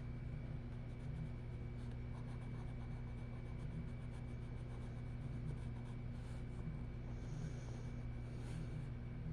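Colouring on paper with quick back-and-forth strokes scratching steadily, over a steady low hum.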